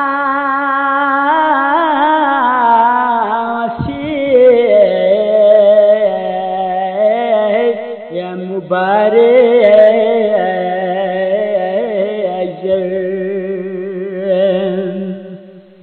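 A solo voice singing a Balti qasida in long, wavering, ornamented phrases, fading out near the end.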